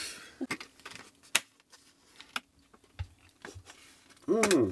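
Scattered small clicks and taps of breakfast tableware and food being handled at a table, a few sharp ticks a second or so apart. A short voice sound near the end.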